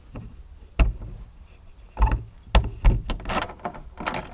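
A run of sharp clicks and knocks, the loudest about two and three seconds in, with a short scrape, as the door of a home smokehouse chamber is unlatched and opened.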